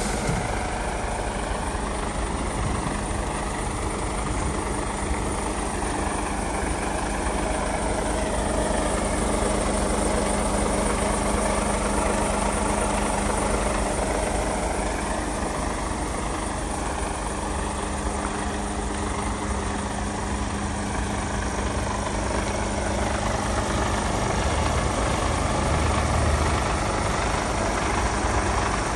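Mercedes-Benz Actros 2445 tractor unit's 450 bhp 12.8-litre straight-six diesel idling with a steady deep hum, a little louder near the end.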